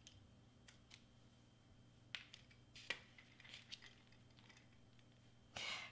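Faint, scattered light taps and clicks of hands handling small craft tools and paper pieces on a cutting mat, with a short hiss near the end.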